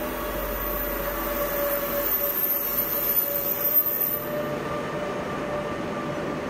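DB Class 146 electric locomotive hauling InterCity 2 double-deck coaches slowly past: train running noise with a steady hum and a high whine that fades out about four seconds in as the locomotive goes by, leaving the coaches rolling past.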